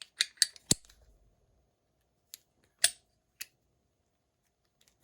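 Sharp metallic clicks from an antique Corbin padlock being worked with a newly cut key: a quick cluster of four clicks in the first second, then three more single clicks spread over the next couple of seconds.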